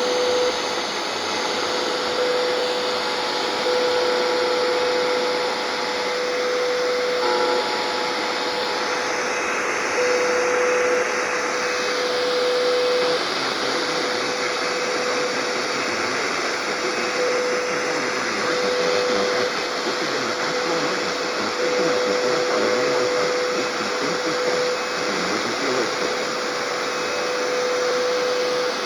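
Radio receiver static: a steady, loud hiss with a whistling tone that keeps cutting in and out every few seconds, as from a receiver tuned to a weak or empty channel.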